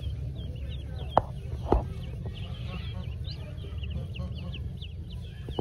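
Pekin ducklings peeping: many short, high, falling peeps in quick succession over a low steady rumble, with two soft knocks between about one and two seconds in.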